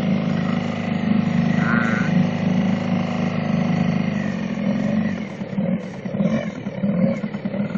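Hangkai 4 hp outboard motor running under throttle, pushing a small inflatable boat along. The engine note is steady for about four seconds, then turns uneven and wavers up and down.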